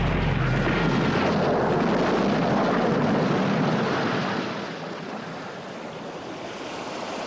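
A loud, steady rushing noise with no distinct strikes, easing off about four and a half seconds in.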